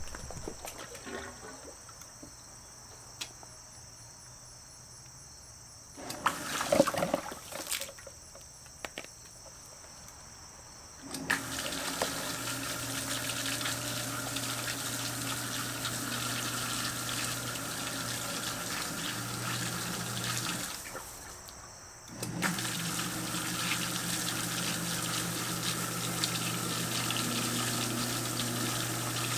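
Electric sump pump pumping water out of a bucket: a few clunks of handling, then about eleven seconds in the pump starts with a steady motor hum and rushing, splashing water. It cuts out briefly about two-thirds of the way through, then runs on.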